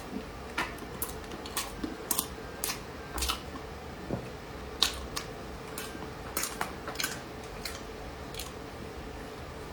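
Close-miked eating sounds: irregular crisp clicks and crunches as a dessert is bitten and chewed, thinning out after about seven seconds, over a faint steady hum.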